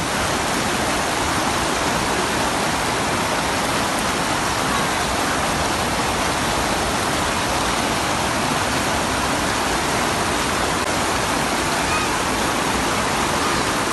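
Loud, steady rush of falling water from a waterfall, close by and unbroken.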